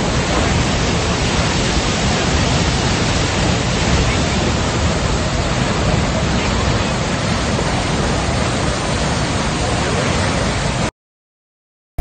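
Steady rushing of a tall waterfall pouring into its plunge pool, cutting off suddenly about a second before the end.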